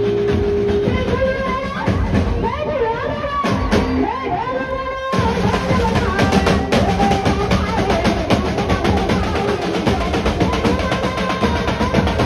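Live garba band music. A melody with sliding pitch runs for the first few seconds; after an abrupt cut about five seconds in, fast, dense drumming on a drum set carries on under the melody.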